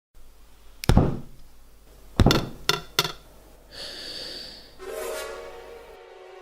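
Foley impacts: a heavy thud about a second in, then three more knocks close together between two and three seconds. A short hiss with a high whine follows, and a held musical tone starts near the end.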